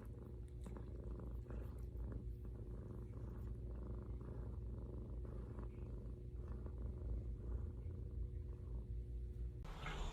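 A domestic cat purring steadily, a faint low rumble that rises and falls in a gentle rhythm.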